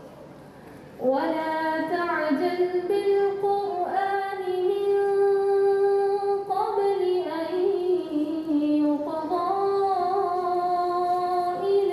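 A female reciter chanting the Quran into a microphone in melodic tajweed style, with long drawn-out held notes that glide between pitches. The voice comes in after a short pause about a second in.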